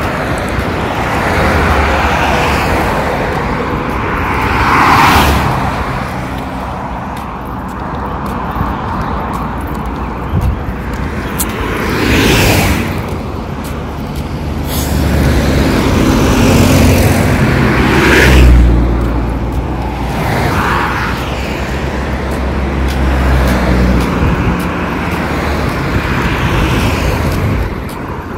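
Road traffic on a dual carriageway: cars swish past one after another in several swells. A lorry's engine drone builds and passes in the second half, the loudest pass.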